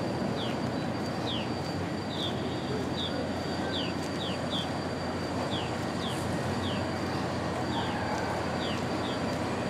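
A bird chirps repeatedly in short, falling notes about once or twice a second, over a steady rumble from the passenger train standing at the platform and a faint steady high whine.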